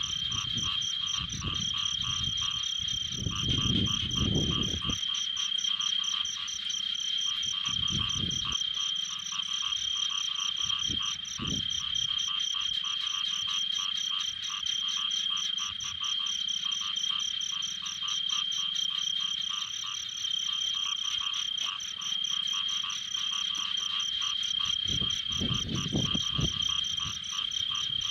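A steady, high-pitched chorus of frogs calling, with a fast pulsing trill. Low rumbling bumps come in the first few seconds, briefly about eight and eleven seconds in, and again near the end.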